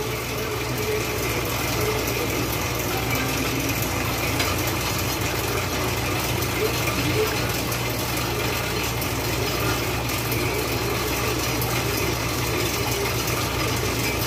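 Steady, even hum of bakery machinery running, with a hand stirring sugar into water in a stainless steel trough to dissolve it.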